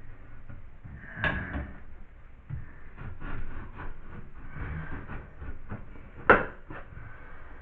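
Hand work on drywall: a run of short scrapes and taps, with a sharp knock about a second in and a louder, sharper knock about six seconds in.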